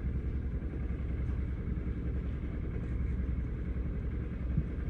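Boat engine idling with a steady low rumble.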